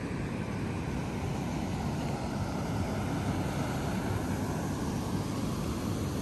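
Water pouring over a small dam, a steady low rushing roar.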